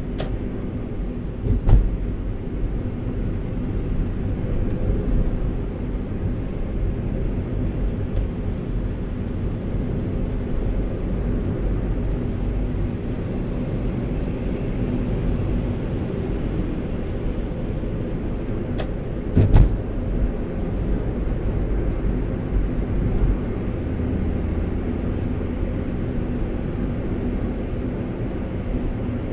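Road and engine noise heard inside a moving car's cabin: a steady low rumble with a faint steady hum. Two brief sharp knocks come through, one about two seconds in and one about twenty seconds in.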